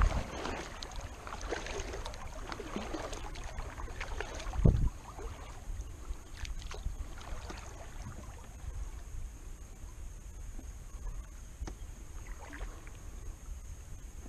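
Kayak paddling: paddle blades dipping and splashing and water washing along the hull, with one low thump about five seconds in, then quieter drips and small splashes.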